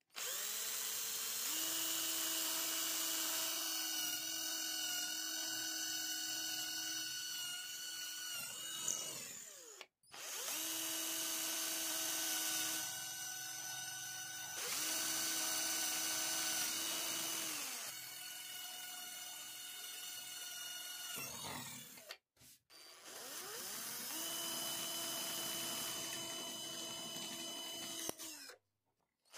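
Electric drill boring holes through a wooden handle blank with a twist bit: a steady motor whine that stops and starts about four times, the pitch dropping as the motor winds down at the end of several runs.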